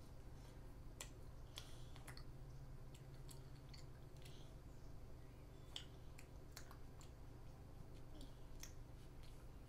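Faint chewing and wet mouth clicks from a child eating a fish-shaped wafer ice cream sandwich (Korean fish cake ice cream), scattered ticks about once a second over a steady low hum.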